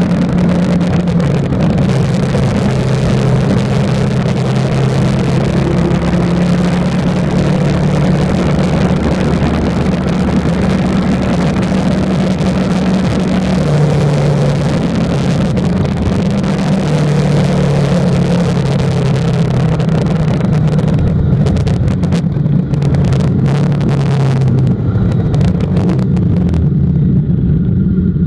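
Harley-Davidson Night Rod Special's 1250 cc Revolution V-twin running under way, its note shifting now and then with the throttle, with wind rushing over the microphone. The wind noise thins out over the last several seconds as the bike slows.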